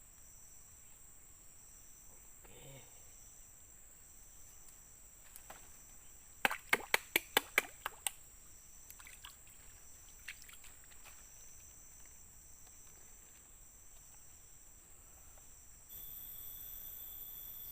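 Tropical forest insects, crickets among them, keeping up a steady, evenly pulsing high-pitched chorus. About a third of the way in there is a quick run of about eight sharp clicks. Near the end a second, higher insect tone sets in and holds.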